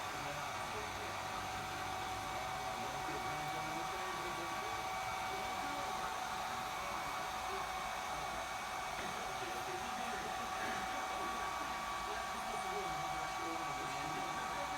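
Hair dryer running steadily: an even rushing hiss with a steady whine, unchanged throughout.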